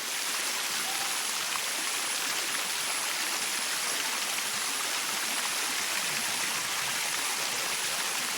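Water running steadily down the limestone cascades of the Bua Tong (Sticky) Waterfall, an even rushing noise.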